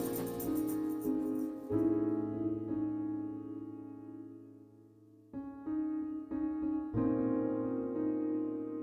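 Background piano music with slow sustained chords. One chord fades away almost to nothing before new chords come in about halfway through.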